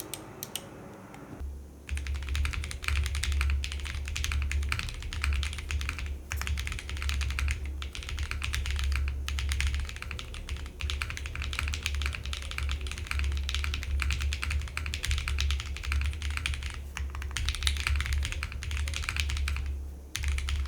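Typing on a mechanical keyboard fitted with GMK MTNU PBT double-shot keycaps: a dense, fast run of keystroke clacks that starts about two seconds in and goes on with a few brief pauses.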